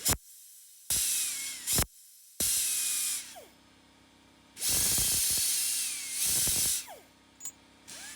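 Compressed air from a shop air line blowing off metal parts in four short hissing blasts, some with a faint falling whistle, after a sharp click at the start.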